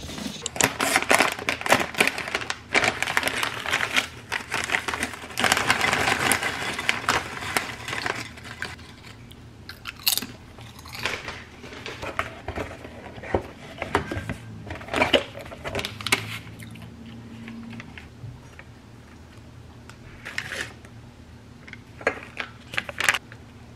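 Sticky lint roller crackling over fabric for the first several seconds. After that come scattered crinkles and small clicks, as a tea sachet is handled and set into a china teacup.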